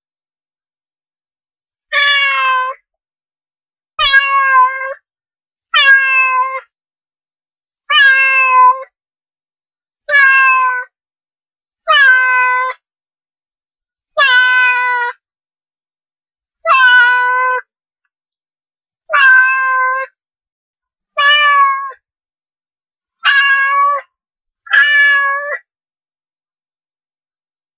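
Domestic cat meowing over and over: about a dozen short meows, each under a second long, roughly two seconds apart, with dead silence between them.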